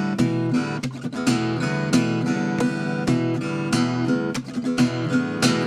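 Loha GA15 acoustic guitar played unplugged, chords strummed one after another with the strings ringing between strokes.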